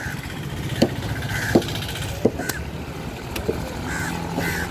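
A large knife chopping through a yellowfin trevally onto a wooden cutting block, three or four separate knocks, over a steady engine running in the background.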